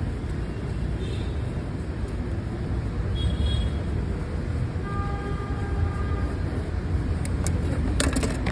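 Steady low rumble of street traffic. A short horn-like tone sounds about five seconds in, and a few sharp clicks come near the end.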